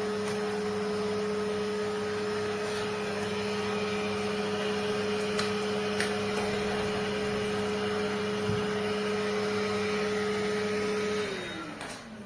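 Pet-grooming vacuum motor of a dog clipper set running with a steady hum and whoosh. About eleven seconds in it is switched off, and its pitch falls as it spins down.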